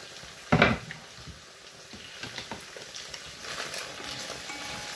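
One loud knock of a wooden cutting board about half a second in. Then chopped carrot and onion sizzle in a frying pan while a wooden spatula stirs them; the sizzle grows louder from about two seconds in.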